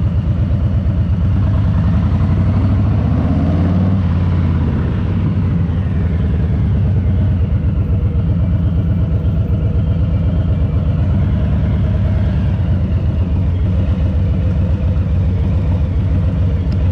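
Harley-Davidson Low Rider S Milwaukee-Eight V-twin running at low, steady revs with evenly spaced exhaust pulses. The revs rise and fall briefly about three to four seconds in.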